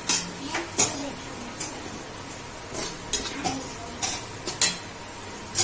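A steel bowl and slotted spatula clinking against an aluminium pressure cooker as ground spices are knocked into hot oil: a string of sharp, irregular metal clinks over the steady sizzle of the oil frying.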